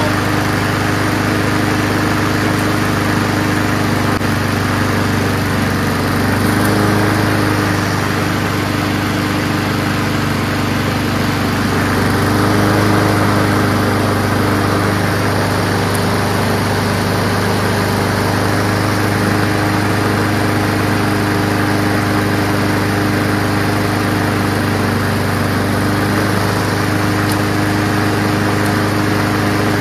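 Honda GCV160 single-cylinder four-stroke engine on a self-propelled lawn mower, running steadily just after being started on fresh gas, with a slight swell in loudness about twelve seconds in.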